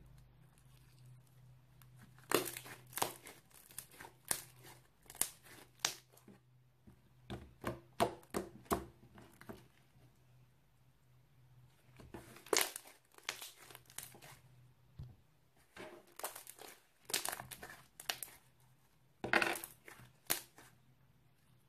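Fluffy Oreo slime being squished and poked by hand, giving clicky, crunchy crackling pops in several runs with short pauses between them.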